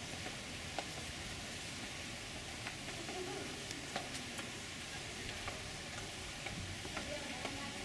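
Steady outdoor background hiss with faint distant voices and a few scattered light clicks.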